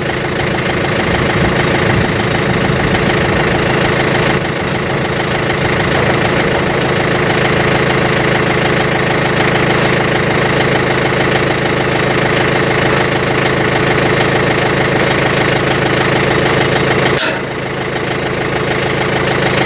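Tractor engine idling steadily at an even note, with one sharp knock near the end.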